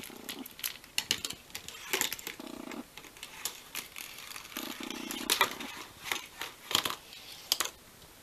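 Glass marbles rolling down a paper-and-card marble run: many irregular clicks and taps as they strike the card track, with three short stretches of rolling rumble.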